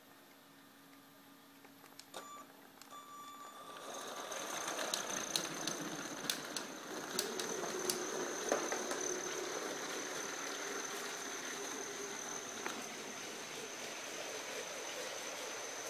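Lego 10219 Maersk train running on plastic track: its electric train motor whines steadily, and the wheels clatter with scattered sharp clicks over the track joints. The sound rises about four seconds in as the train comes close.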